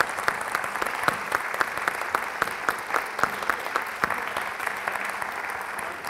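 A large indoor audience applauding steadily, many hands clapping together, with a few nearby claps standing out sharp and loud.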